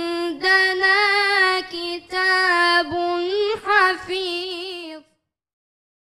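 A boy's unbroken voice chanting Quran recitation in the melodic tajweed style. He holds long notes in short phrases and adds wavering ornamental turns near the end, and the voice cuts off abruptly about five seconds in.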